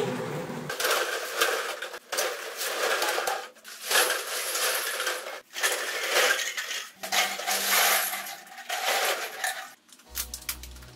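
Empty plastic drink bottles tumbling out of a plastic basket and clattering onto a tiled floor, a long run of hollow clattering broken by short pauses.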